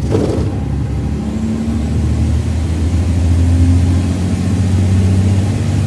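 Mercedes-Benz OC500RF coach's diesel engine pulling hard under acceleration. It comes in suddenly after a brief dip, holds a loud, steady note and eases slightly near the end.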